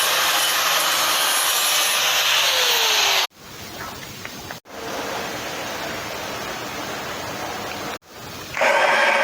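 Power sanding or grinding on an aluminium alloy wheel: a steady abrasive hiss, broken by abrupt cuts at three points and quieter in the middle section. Near the end a louder, more buzzing tool sound starts.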